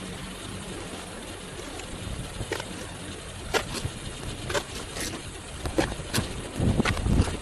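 Snow being shoveled: irregular scrapes and knocks of a snow shovel about a second apart, with heavier thumps near the end, over wind noise on the microphone.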